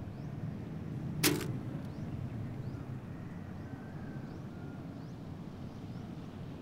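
Steady low outdoor background rumble with faint high chirps, broken about a second in by one sudden sharp whoosh-like hit, the loudest sound here.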